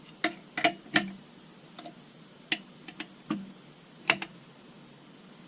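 Sharp, irregular clicks and taps, about eight in the first four seconds, from handling a degree wheel and turning the crankshaft against a piston stop while setting top dead center on a chainsaw engine.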